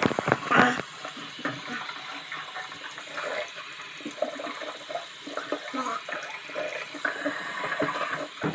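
Bathroom faucet running into a sink while someone rinses out his mouth under it, with irregular splashing and spluttering, loudest in the first second.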